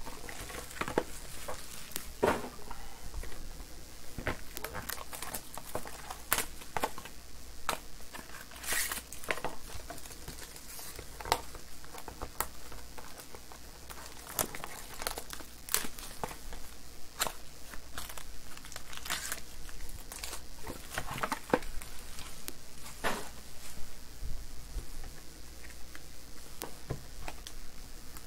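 Foil wrappers of Panini Absolute basketball card packs crinkling and tearing as they are opened by hand, with scattered sharp rustles and clicks of cards and packaging being handled.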